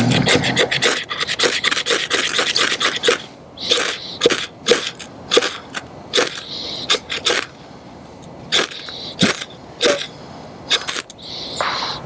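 Ferro rod scraped hard along the small sharpening choil of an Old Timer Copperhead 2147OT folding knife's steel blade to throw sparks onto wood shavings. There is a fast, dense run of scrapes for about three seconds, then single strikes about every half second, until the shavings catch near the end.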